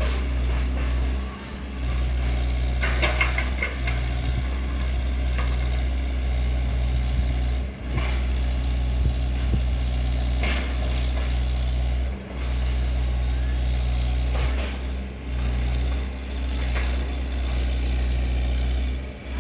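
Excavator's diesel engine running steadily, with a few short clanks and knocks.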